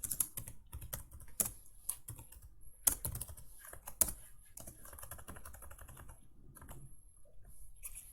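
Typing on a computer keyboard: irregular key clicks, with a couple of louder strokes about three and four seconds in.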